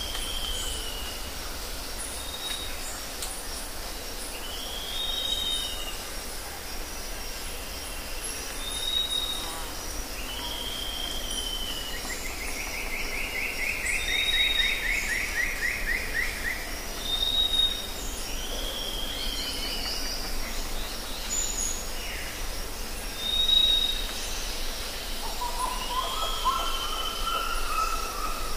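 Forest ambience: several birds calling over a steady background hiss. A short, curved whistled call repeats every few seconds, a fast trill runs for a few seconds about halfway through, and lower calls come in near the end.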